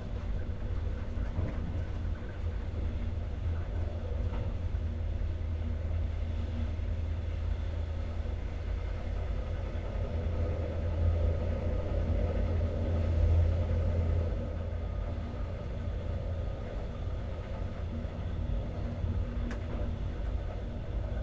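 Alex regional passenger train running along the line, heard from inside a coach: a steady low rumble of wheels on rails, swelling slightly around the middle.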